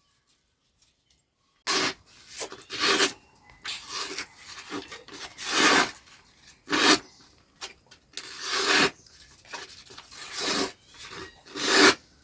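About a dozen irregular scraping strokes of uneven length, starting after a second and a half of near silence.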